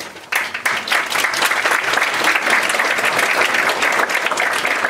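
Theatre audience applauding: a dense, steady patter of many hands clapping that swells sharply a moment in and stays loud.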